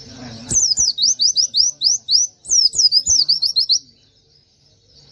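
Pleci (white-eye) songbird singing a fast run of sweeping high whistled notes, several a second, for about three seconds before pausing. Faint knocks sound underneath.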